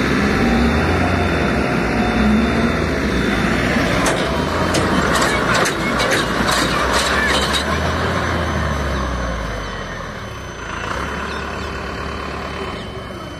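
Farmtrac 6055 T20 Powermaxx tractor's diesel engine running loudly and steadily, with a quick run of about eight sharp clicks in the middle. The sound grows quieter over the last few seconds.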